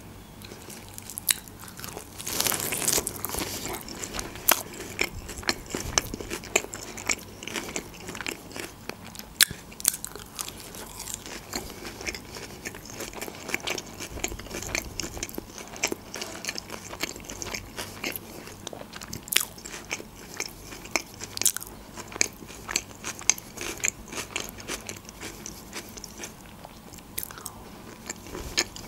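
Close-miked biting and chewing of a çiğ köfte wrapped in an iceberg lettuce leaf, the lettuce crunching. A loud bite comes about two to three seconds in, then steady chewing with many small crunches and wet clicks.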